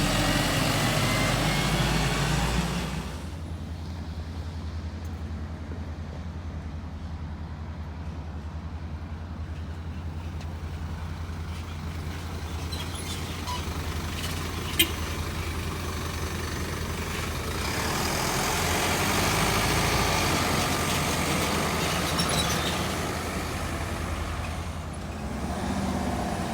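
Heavy diesel trucks: a steady low engine rumble with a fast pulse, louder passing-traffic noise at the start and again about two-thirds of the way through, and a single sharp click a little after halfway.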